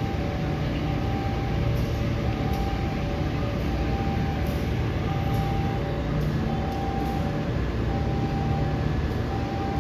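Diesel locomotive of a long-distance passenger train running slowly into the station, a steady low engine rumble. A repeating two-note electronic signal sounds behind it.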